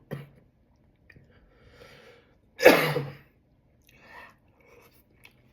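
A man sneezes once, loudly, about two and a half seconds in, after a short in-breath; it comes with a runny nose.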